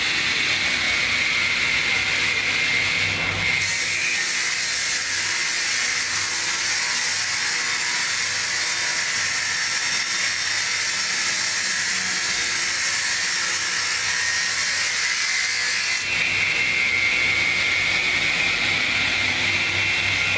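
Roller-fed woodworking saw machine running with a steady high whine; from about 4 s to 16 s a piece of wood goes through and the blades cut it with a loud, dense hiss, and afterwards the machine returns to its whine.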